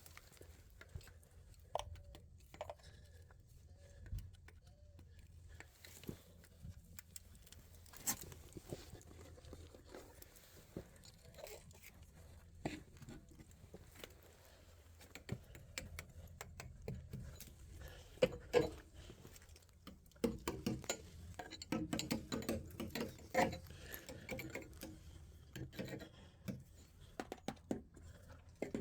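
Irregular tapping and knocking on a house's exterior siding boards, sounding the boards for damage. The taps are sparse at first, then come in a denser, louder run about two-thirds of the way through.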